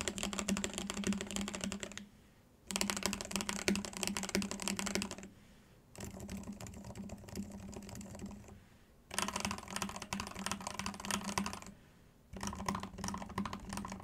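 Fast typing on a mechanical keyboard fitted with linear switches, in five bursts of about two seconds each with short pauses between them. The first burst is TTC Flame Red switches with nylon housings, giving mellow, bassy thuds. The third burst, on Gateron Silent Ink Black silent switches, is clearly quieter, and the last is on Gateron North Pole switches.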